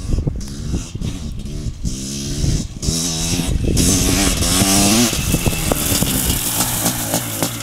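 Honda CR500's single-cylinder two-stroke engine with an FMF exhaust, revving in short bursts with the throttle chopped between them, then held in a long pull that rises in pitch from about three seconds in. Near the end it drops back to a lower, pulsing note.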